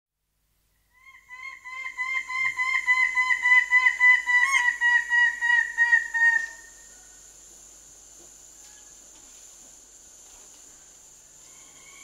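Lesser bird-of-paradise giving its loud display call: a fast run of repeated notes, about four a second, building up and stopping abruptly about six and a half seconds in. A steady high drone of cicadas and crickets runs underneath, and another bird starts calling near the end.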